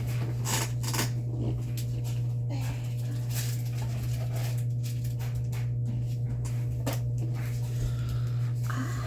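A steady low hum under scattered clicks, taps and rustles of small hard items and packaging being handled, with light clinks.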